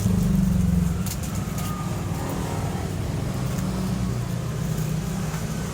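A steady low motor hum, like an idling engine, with a few short light clicks.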